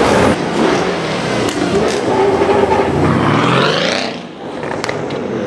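Tuned Mercedes-Benz CLS 63 AMG's twin-turbo V8 breathing through a Fi aftermarket exhaust, accelerating away. The engine note climbs steeply in pitch for about a second, drops off briefly about four seconds in, then picks up again.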